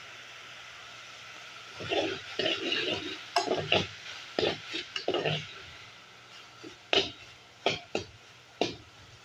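Ground beef frying with a faint steady sizzle in an aluminium saucepan. About two seconds in, a metal spoon starts stirring and scraping it around the pan in a run of loud strokes. Near the end the spoon clinks four times against the pot.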